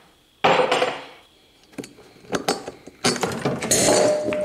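Metal parts of an Atlas Copco LE20 compressor pump clanking as it is taken apart. A sharp clank comes about half a second in, a few light clinks follow, and near the end there is a longer clatter that leaves a steady ringing note.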